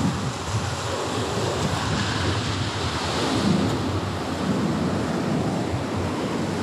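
Ocean surf rushing steadily, with wind buffeting the microphone in irregular low rumbles.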